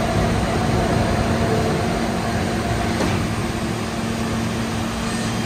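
New York City subway F train standing at the platform, giving a steady hum with rushing noise from its running equipment.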